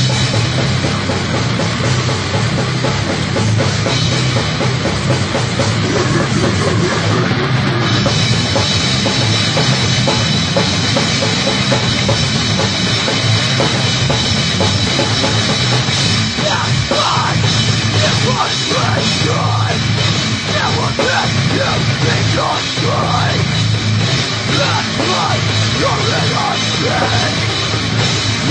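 Heavy metal band playing a loud, dense song, with a drum kit and bass drum driving it.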